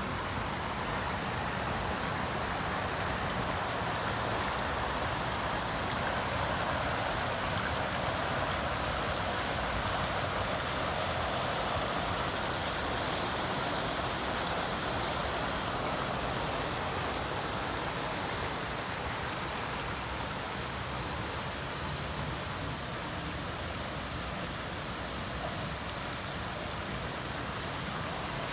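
Steady rush of running water from an urban water feature, a shallow man-made stream with fountains.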